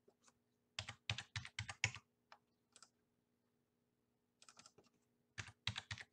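Computer keyboard being typed in short runs: a quick burst of about half a dozen keystrokes about a second in, then quiet, and another run of keystrokes near the end, as new dimension values are entered.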